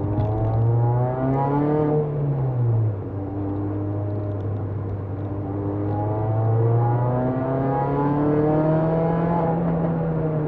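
Peugeot 206 RC's four-cylinder petrol engine heard from inside the cabin, pulling hard with its pitch climbing, dropping off about two to three seconds in, then climbing again from about six seconds and falling away near the end.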